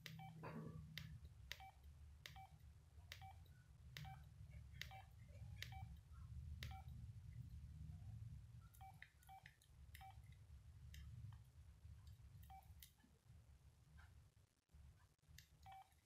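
Nokia 2608 keypad tones: about fifteen short beeps at one pitch, each with a faint key click, sounding at an uneven pace as the keys are pressed to scroll through the phone's menus. A low steady hum lies underneath.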